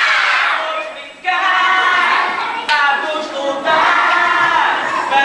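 A group of children singing a song together, in sung phrases with a brief break about a second in.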